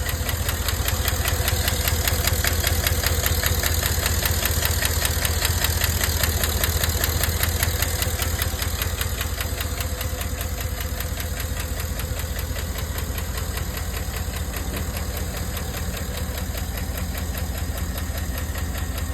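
Cadillac Escalade 6.2-litre V8 running with a steady, rapid ticking over the engine hum, which the owner suspects is lifter noise.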